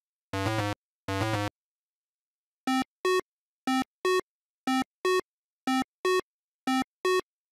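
Chiptune-style synthesized footstep effects for walking pixel-art animals. First come two low buzzy steps for the rhinoceros, about a second apart. After a pause come five pairs of short pitched blips, one pair about every second, in a clip-clop rhythm for the zebra's hooves.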